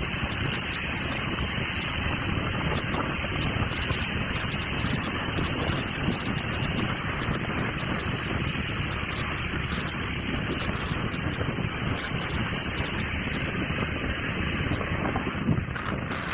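Wind buffeting the microphone of a moving motorbike: a steady rush of wind and road noise.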